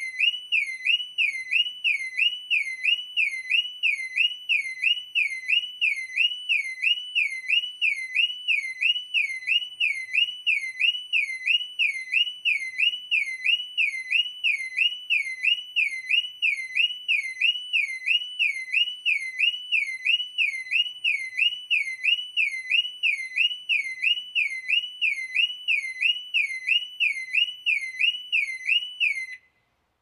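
Car alarm siren sounding a high tone that swoops up and down a little more than once a second, steady and unbroken, then cutting off suddenly near the end.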